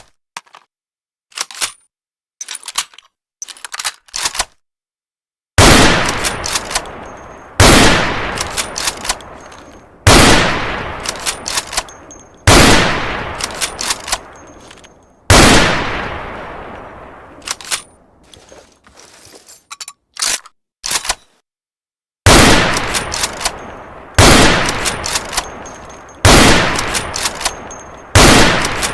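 Mauser Gewehr 98 bolt-action rifle firing nine loud shots about two seconds apart, each with a long echoing tail and small metallic clicks of the bolt being worked between shots. Light clicking comes before the first shot, and a longer pause with clicking comes after the fifth.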